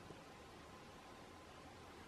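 Near silence: a faint steady hiss with a faint steady hum.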